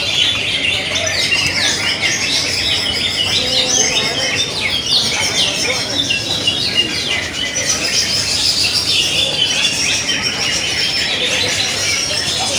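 Many greater green leafbirds (cucak ijo) singing at once from their contest cages: a dense, steady chorus of quick chirps and whistled phrases overlapping without a break.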